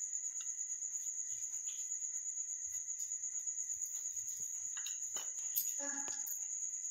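Crickets chirping: a steady, high, rapidly pulsing trill. A few faint clicks and a short low tone come near the end.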